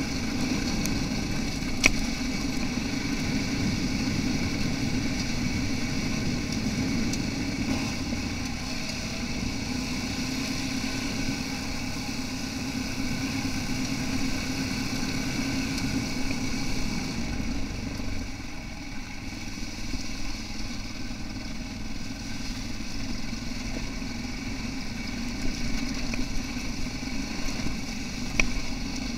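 Yamaha XT660R's single-cylinder four-stroke engine running at steady, moderate revs as the bike rides along, easing off a little about two-thirds of the way through. There is a sharp knock about two seconds in and another near the end.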